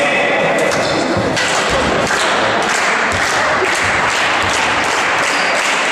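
Basketball thumping on the gym floor a few times, over a steady wash of echoing hall noise.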